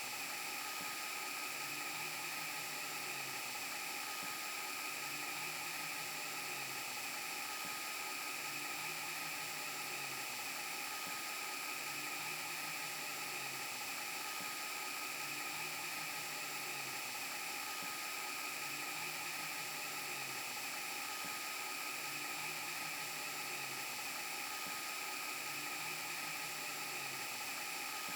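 VHS rewind glitch sound effect: a steady hiss with high whining tones and a low hum that swells about every two seconds, like a looped tape rewind on a broken TV.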